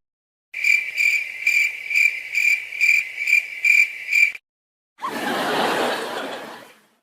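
Cricket chirping sound effect: a high, even chirp repeating about twice a second for about four seconds. After a short gap comes a noisy sound of about two seconds that fades away.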